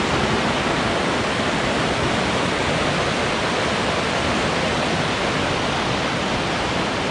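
Rushing water of river rapids and a waterfall: a steady, even rush with no breaks.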